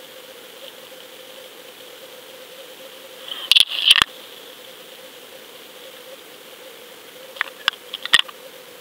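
Underwater recording from a camera on a rockfish rig: a steady hiss with a faint hum, broken by a cluster of sharp clicks and knocks about three and a half seconds in and another near the end.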